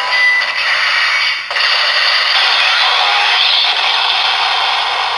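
DX Shot Riser toy gun playing its finisher blast sound effect through its small built-in speaker: a loud, harsh, noisy rush with a brief break about a second and a half in, then a long steady stretch.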